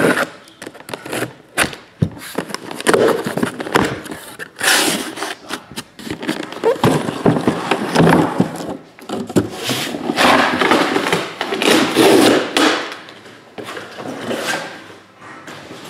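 A cardboard shipping case being opened by hand: packing tape torn off, then cardboard scraping and shrink-wrapped boxes sliding out. The sound comes in irregular bursts of rustle and scrape with sharp clicks and knocks.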